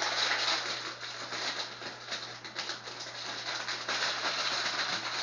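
Plastic packaging crinkling and rustling as an armband is handled and worked out of its wrapper, over a steady low hum.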